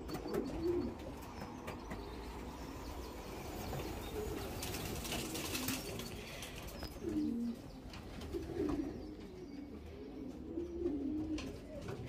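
Young racing pigeons cooing on and off, low wavering calls, with occasional wing flaps as birds land.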